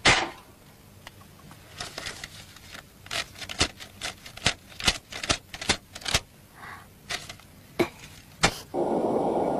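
A door shuts with a sharp knock, then paper banknotes snap one after another as a wad of cash is counted by hand. Just before the end a steady rushing noise comes in.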